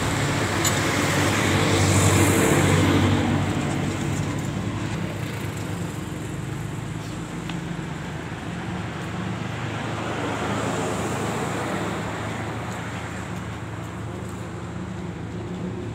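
Road traffic: vehicles pass, one swelling up about two to three seconds in and another around ten seconds, over a steady engine hum.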